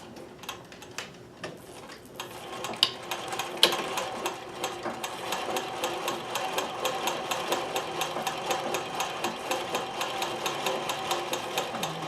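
Consew sewing machine stitching through felt at a slow, even pace, each needle stroke a distinct tick. It starts up about two to three seconds in, after a couple of sharp clicks, and then runs steadily.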